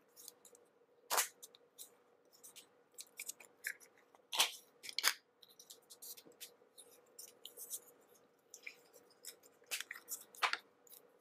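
A plastic Play-Doh tub being opened and the dough dug out: scattered clicks and scraping of fingers and nails on the plastic tub and lid, with a few sharper clicks among them.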